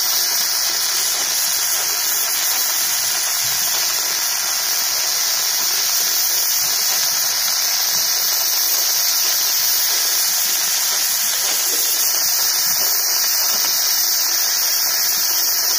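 Electric welding arc hissing steadily and without a break.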